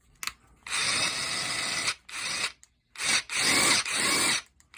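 DeWalt DCF961 cordless impact wrench run in a series of short trigger pulls at its top speed setting. There are about six bursts, each starting and stopping sharply, and the longest lasts a little over a second.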